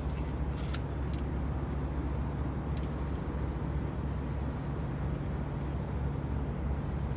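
Steady low engine hum with a constant deep drone, and a few faint clicks in the first few seconds.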